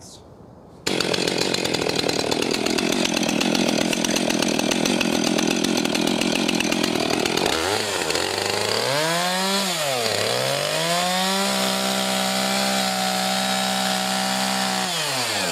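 Two-stroke gas chainsaw cutting into a pumpkin to open its top, starting suddenly about a second in. About halfway through, the engine note dips and climbs twice, holds steady at high revs, then drops back near the end as the throttle is released.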